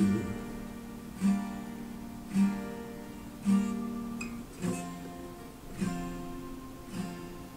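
Acoustic guitar strummed slowly, one chord about every second, each chord left to ring out before the next.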